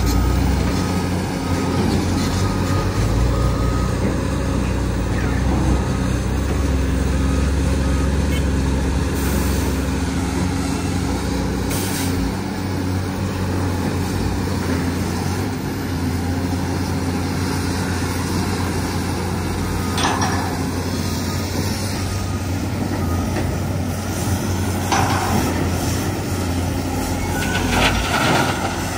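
Heavy diesel machinery running together: a steady low engine drone from dump trucks, a Cat excavator and a wheel loader. A reversing alarm beeps for the first several seconds. Near the end, material crashes into a dump truck's steel bed as a loader bucket is emptied.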